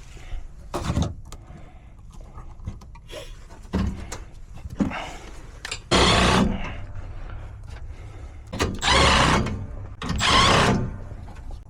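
Pipe wrench turning a threaded fitting on gas pipe: a few light knocks, then three loud scraping strokes of metal on metal, each under a second long, from about halfway through.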